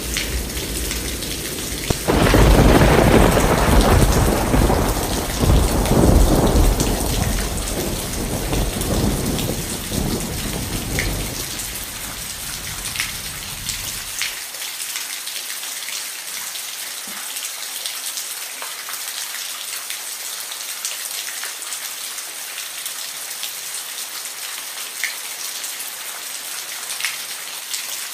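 Steady rain with a thunderclap that breaks about two seconds in and rolls on in several swells for roughly ten seconds. As it fades, the deep rumble cuts off abruptly, leaving only the rain hiss with scattered drips.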